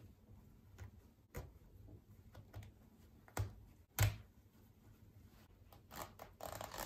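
Seam ripper cutting stitches out of a sundress seam: a few small, sharp clicks and snips spaced out over quiet, the loudest about four seconds in. Near the end, denser rustling and scratching of fabric being handled.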